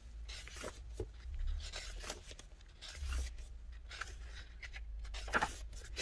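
Pages of a photo book being flipped through by hand: irregular short paper rustles and slides, with no steady rhythm.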